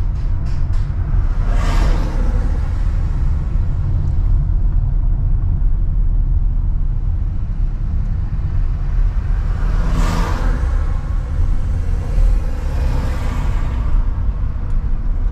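Steady low rumble of a car driving over a rough, damaged road surface, tyre and road noise heard from inside the vehicle. Three brief rushes of noise swell and fade, about two seconds in, around ten seconds and around thirteen seconds.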